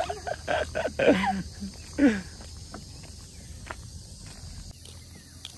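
Insects chirring steadily at a high pitch, with a few soft footsteps and brief bits of voices in the first two seconds; the chirring cuts off abruptly near the end.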